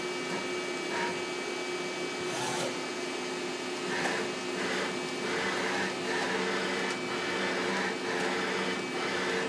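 Supermax TC-2 CNC lathe under power, its X-axis cross-slide being driven by its servo, over the machine's steady hum. There are repeated swells of motion noise in the second half. The axis sounds normal.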